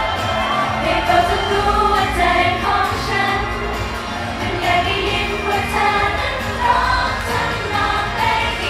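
Female idol group singing a bright Thai-language pop song live into handheld microphones over a backing track, amplified through the stage PA.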